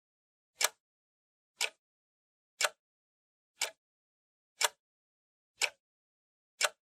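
Steady ticking: seven short, sharp ticks evenly spaced one a second, with silence between them.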